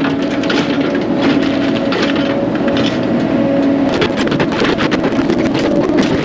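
Diesel land-clearing machinery running steadily under load, with a held engine tone and many short cracks over it. The sound turns abruptly brighter about four seconds in.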